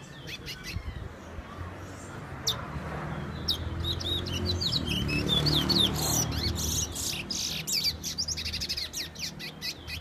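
Towa-towa seed-finch singing a fast run of high whistled notes, building to its loudest and densest in the middle.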